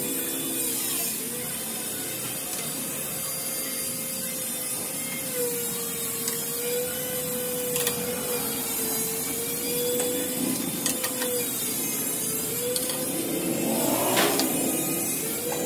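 A steady machine hum with a slowly wavering pitch, with a few light clicks and knocks of hand tools working on the scooter's plastic body and fittings, the loudest near the end.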